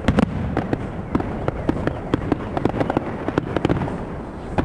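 Aerial fireworks salute bursting overhead: an irregular run of sharp bangs and crackles, several a second.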